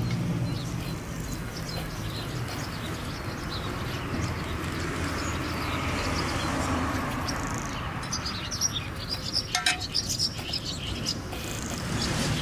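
Small birds chirping in the background, short high chirps scattered throughout and more frequent in the last few seconds, over a steady hiss. A few sharp clicks come about two-thirds of the way through.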